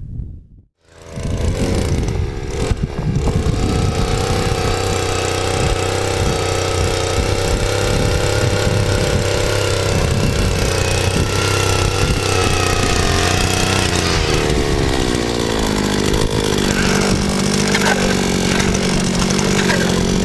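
Handheld petrol ice auger engine running at high revs while drilling through lake ice. It starts about a second in. Between about 14 and 16 seconds its pitch falls to a lower, steady speed.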